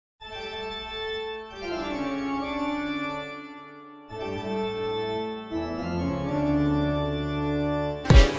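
Intro music on an organ: slow, sustained chords that change every second or two, with a brief drop-out about four seconds in. Just before the end, a loud sudden hit with a falling swoop in pitch cuts in.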